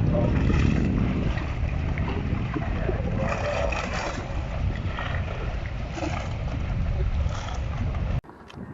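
Wind buffeting the microphone, a loud low rumble with hiss, which cuts off abruptly near the end.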